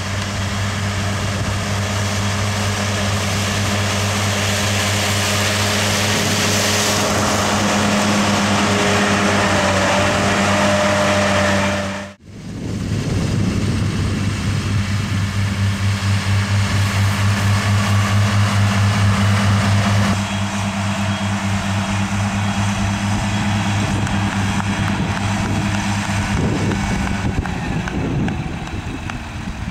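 A 125 hp tractor's diesel engine runs steadily with a low, pulsing hum as it pulls a disc mower through long grass. The sound cuts out for a moment about twelve seconds in, then returns, and grows a little quieter toward the end.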